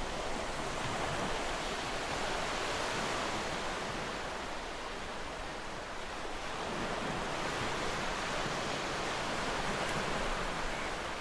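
Ocean waves: a steady wash of surf noise that slowly swells and eases.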